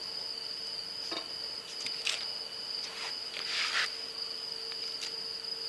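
Crickets trilling steadily at a high pitch, with a couple of brief soft rustles about two and three and a half seconds in.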